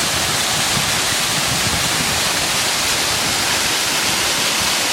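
Creek waterfall rushing steadily: a constant, even hiss of falling water.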